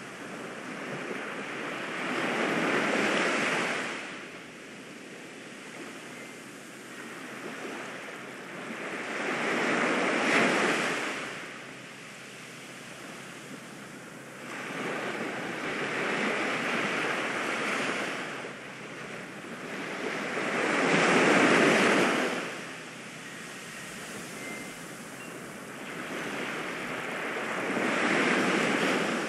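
Ocean surf: waves break in slow swells, five of them, rising and falling about every six to seven seconds.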